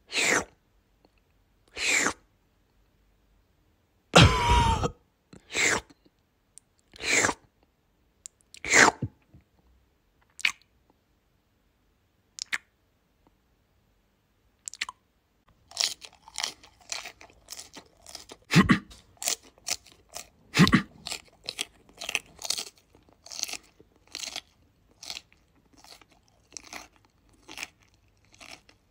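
Crunchy chewing and biting sounds matched to a goldfish eating food pellets. At first there are single crunches spaced a second or two apart. After a short pause, about halfway through, comes a quick run of crunches, about three a second, with two louder, deeper crunches among them.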